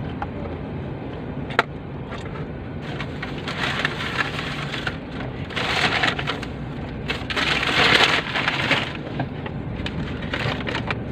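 Takeout food packaging crinkling and rustling in several bursts as it is handled, with a few sharp clicks, over a steady low hum of the car.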